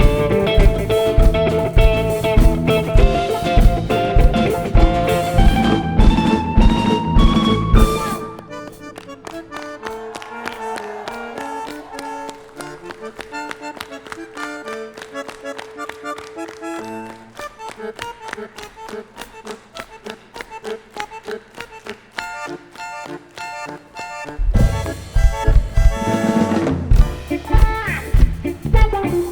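Rock band playing an instrumental passage. A loud full-band section with drums carries a melody that climbs steadily in pitch. About eight seconds in it drops to a quiet, sparse stretch of held and picked notes without drums, and the full band crashes back in near the end.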